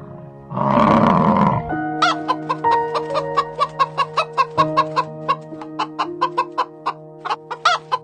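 African buffalo giving one short, low grunting call, then a run of hens clucking, many short sharp clucks at about three to four a second, over background music with steady held notes.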